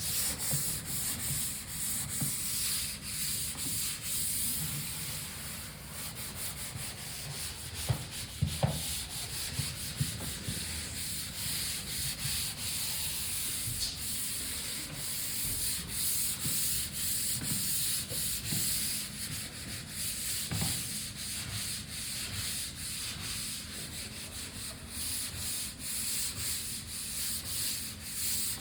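Light sanding of a level-five drywall finish, a skim coat of joint compound, giving a steady scratchy rasp in repeated strokes. A couple of brief knocks come about eight seconds in.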